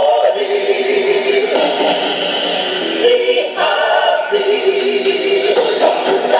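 Yosakoi dance music playing loudly, with a group of voices singing over it.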